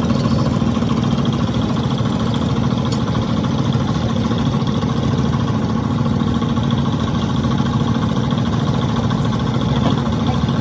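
A motor running steadily with an unchanging hum.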